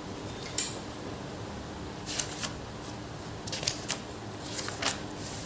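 A few short, sharp clicks and rustles, spaced irregularly over a faint steady hum.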